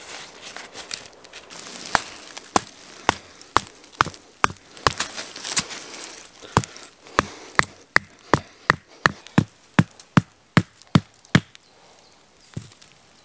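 A dried-out wooden tent peg being hammered into forest ground: sharp knocks, irregular at first, then a steady run of about two to three blows a second that stops near the end. Tarp fabric rustles during the first half.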